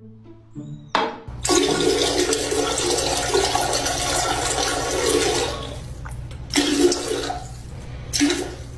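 Rushing water that starts suddenly about a second in, stays loud for about four seconds, then dies down with two shorter surges.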